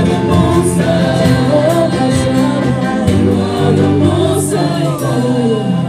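Live church worship choir singing a gospel song, with instrumental accompaniment underneath.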